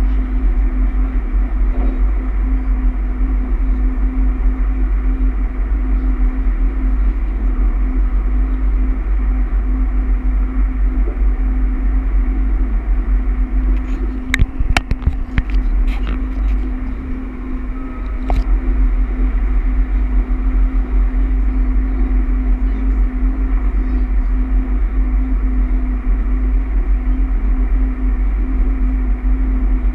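Inside a Bombardier AGC electric multiple unit running at speed: a steady rumble with a constant hum. About halfway through there is a short cluster of sharp clicks.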